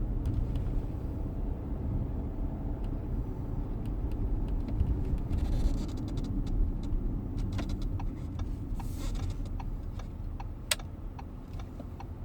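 Short squeaks and creaks from the front seat of a 2016 Audi Q7, like leather rubbing on leather, coming over and over and more often in the second half, with one sharper click near the end. Underneath is a steady low rumble inside the car's cabin.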